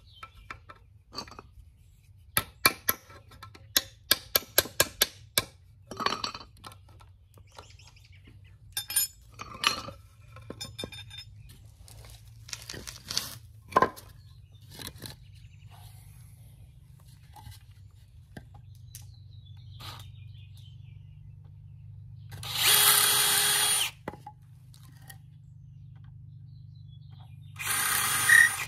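Pine 2x4 boards knocking and clattering on concrete as they are handled, with a quick run of knocks about two to five seconds in. Near the end a cordless drill runs in two short bursts of about a second each.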